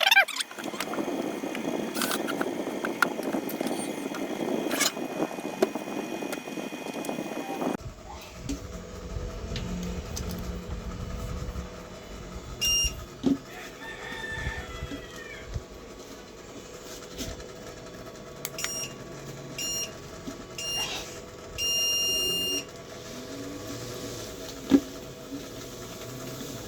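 Electric treadmill running with someone walking on it, a steady hum that stops abruptly about eight seconds in. Then the console gives a series of short electronic beeps and one longer beep as its buttons are pressed, over a low hum, with a brief bird call in the background about halfway through.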